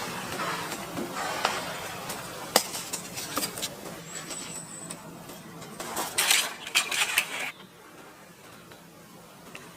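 Handling noise: a series of sharp clicks and knocks mixed with rustling, scraping bursts. It drops to a much quieter background about three-quarters of the way through.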